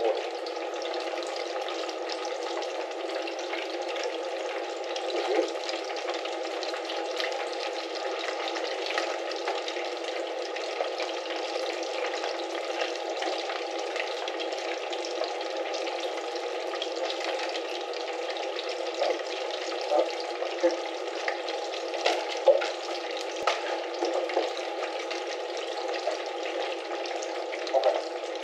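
Food frying in hot oil: a steady sizzle with fine crackling, and a few sharper pops past the middle.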